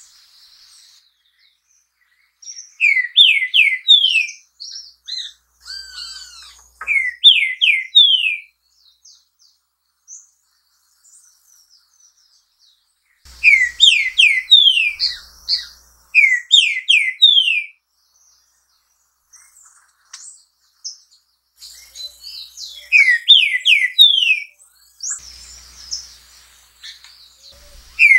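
Green-winged saltator singing: loud phrases of rich whistled notes, each a quick run of three or four slurred notes falling in pitch, repeated about six times with pauses of a few seconds between. Fainter thin, high chirps come between the phrases.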